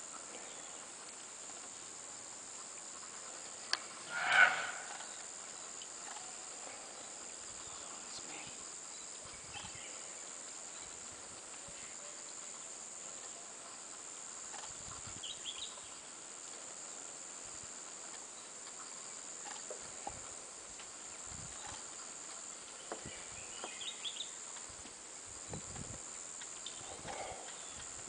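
A steady high hiss of outdoor background, broken about four seconds in by one short, loud animal call.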